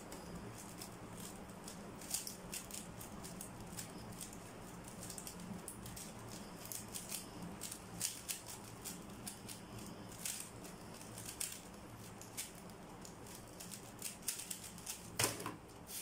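Plastic 3x3 speedcube being turned rapidly by hand: a fast, irregular run of light clicks and rattles from the layers turning, with a louder knock near the end as the solve finishes.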